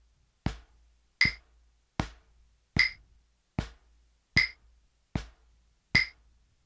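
Wooden drumsticks tapping a Reflexx rubber practice pad in slow alternating single strokes, right then left hand, eight even taps about 0.8 s apart, two to each beat. A short, higher metronome click lands with every other tap, on the beat at quarter note = 38.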